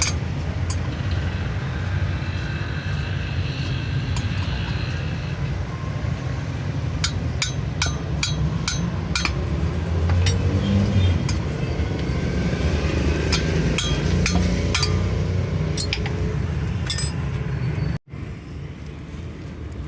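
A heavy truck's engine running steadily, with scattered sharp metallic clinks of tools on metal. The sound cuts out abruptly near the end and comes back quieter.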